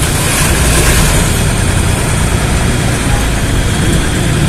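Bus engine idling: a steady low hum with a noisy hiss over it, unchanging throughout.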